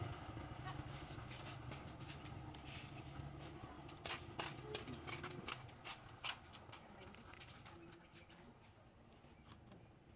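Faint, scattered light clicks of a thin steel piston ring being worked by hand into its groove on an aluminium motorcycle piston, with a cluster of clicks a little before halfway, over a low background hum.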